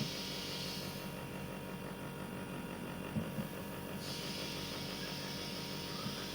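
Air conditioner unit running with a steady hum, under a higher hiss that drops out for about three seconds a second in.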